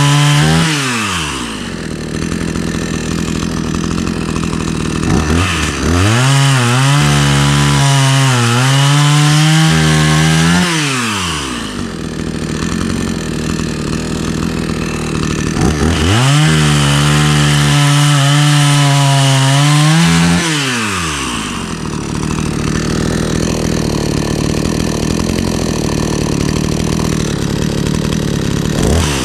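Hyundai two-stroke petrol chainsaw running after a cold start, settling from high speed to idle and then revved up twice to a high, slightly wavering engine speed for about five seconds each time before dropping back to idle.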